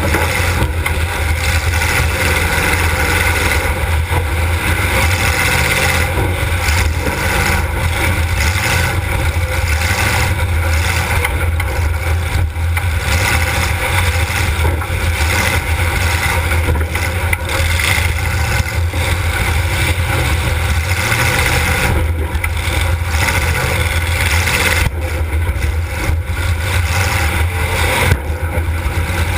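Demolition derby car's engine running loud and hard, a steady low rumble with a rough noisy edge, heard from inside the car. A sharp knock stands out about a second before the end.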